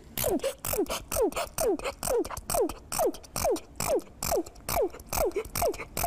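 A young girl sneezing over and over in an uncontrollable fit, short sneezes that drop in pitch, about two or three a second. This is the chronic sneezing of a rare condition that makes her sneeze up to thousands of times a day.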